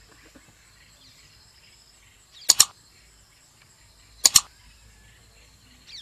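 Mouse-click sound effects, a quick double click twice, about two and a half seconds in and again just after four seconds. They come from the animated subscribe-button overlay. Beneath them is faint outdoor ambience with a steady high insect drone and a few chirps.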